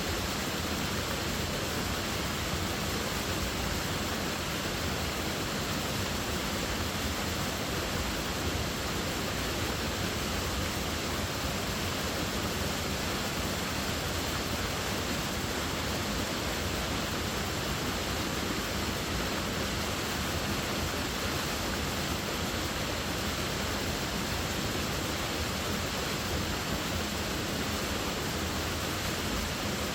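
Waterfall, a steady, even rush of falling water with no breaks or changes.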